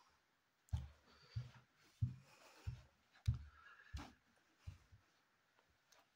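Footsteps on a wooden floor: a steady walk of short, deep thuds, about one and a half steps a second, growing fainter near the end.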